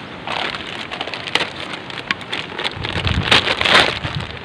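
Scraping and clicking handling noise as a motorcycle speedometer cable is worked loose and pulled free, loudest near the end.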